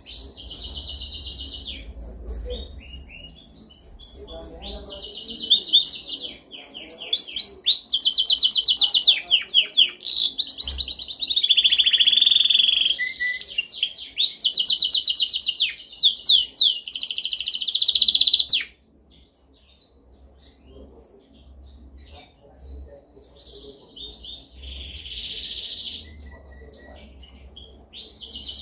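Domestic canary singing: long runs of rapid trills and rolls in a high voice. The song is loud for most of the first two-thirds, cuts off abruptly, then carries on more quietly.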